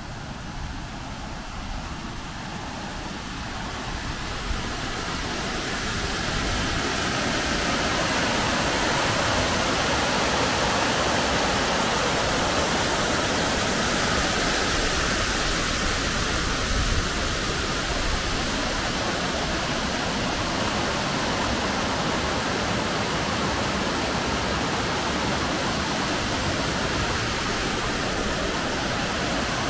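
White water pouring over a small weir and rushing down a stream: a steady rush that grows louder over the first six seconds or so, then holds steady.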